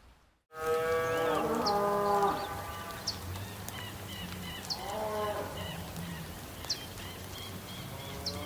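Long, drawn-out livestock calls. After a brief silence, the first begins about half a second in and lasts about a second and a half. A shorter one comes around the middle, and another starts near the end, with short high chirps scattered between them.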